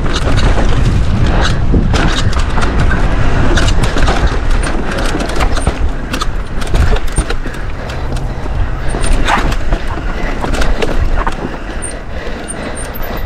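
Wind buffeting an action camera's microphone on a mountain-bike ride over a rocky trail, with a dense rumble and many sharp rattles and knocks from tyres and bike on rock and dirt.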